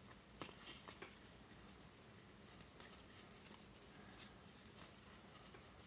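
Faint, irregular flicks and soft slides of baseball trading cards being thumbed through by hand, card stock brushing against card stock.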